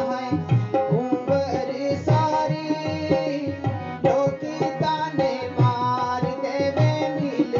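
Live Gojri folk music: a harmonium playing a sustained melody over a steady, rhythmic hand-drum beat.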